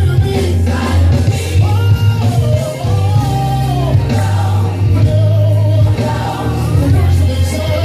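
Gospel praise team singing with a band: sung notes held and sliding over a strong, steady bass line.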